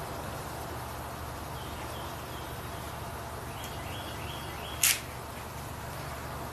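Steady low hum of a quiet workshop, with a few faint high chirps and one short, sharp, hissing snap about five seconds in.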